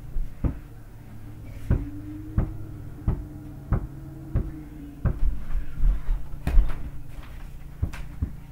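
A mini basketball being dribbled on a carpeted floor, a dull thump about every two-thirds of a second, with heavier footfalls and scuffling about five to seven seconds in.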